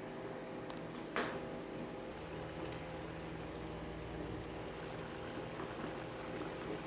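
Pots simmering and bubbling on a lit gas stove: a steady watery hiss, with one knock about a second in.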